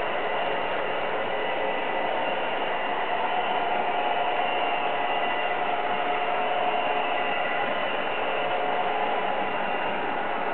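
HO-scale model trains running on a DCC layout: a steady mechanical whir of small motors and wheels on the track, with a few faint steady whines in it.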